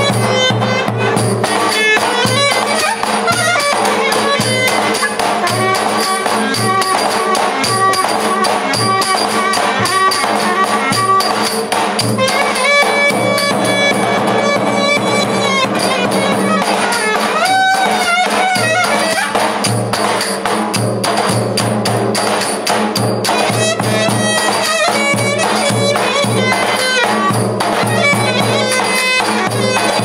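Live Turkish davul-and-reed folk dance music. A davul bass drum is beaten in a steady, pulsing dance rhythm under a loud reed wind instrument playing the melody.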